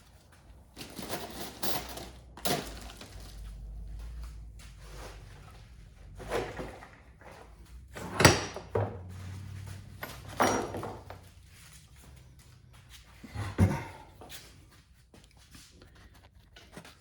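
Workbench handling: tools and driveshaft parts picked up and set down, a series of knocks and clatters, the sharpest about eight seconds in and again near the end.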